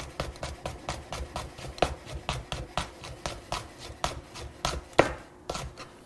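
Chef's knife slicing a serrano pepper thin on a wooden cutting board: quick, even knocks of the blade on the board, about four to five a second, thinning out and stopping near the end.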